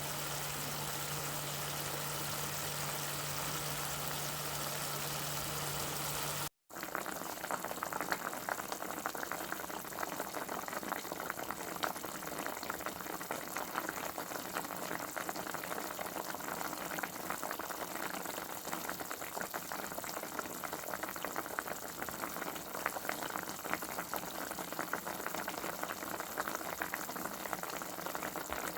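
Steady hiss with a low hum, then a brief cut to silence about six and a half seconds in, followed by the dense crackling and bubbling of food cooking on the stove.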